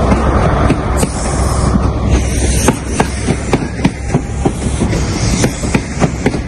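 A train passing close by: a steady rumble, then from about two seconds in a quick run of wheel clicks over the rail joints, several a second.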